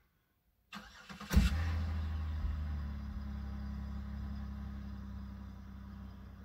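A car engine starting: a short crank, catching with a loud burst about a second in, then idling steadily and slowly settling quieter.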